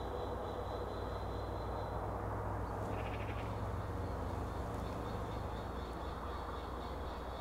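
A steady ambient bed: an even hiss with a low hum and a thin high tone held throughout. About three seconds in comes a short, rapidly pulsing rasp high in pitch, like a bird's call.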